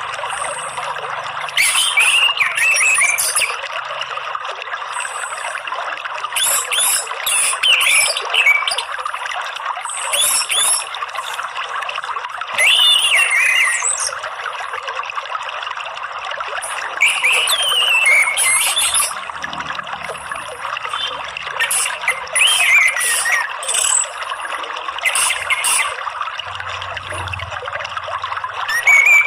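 Orange-headed thrush song, short whistled phrases every few seconds, over a steady trickle of running water.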